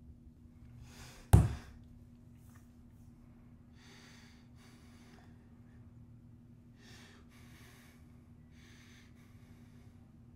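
A person breathing heavily, with about half a dozen separate sharp breaths, over a steady low hum. About a second in there is a single loud, deep thump.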